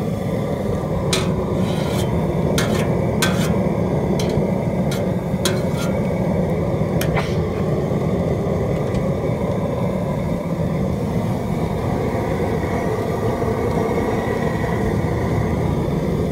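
Steady low rumble of the crawfish boiler's propane burner running. About eight sharp clicks and taps come in the first seven seconds.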